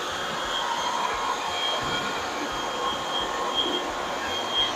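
Greenworks 60V cordless leaf blower running steadily, a rush of air with a thin high whine over it, blowing dirt off a bush hog's deck.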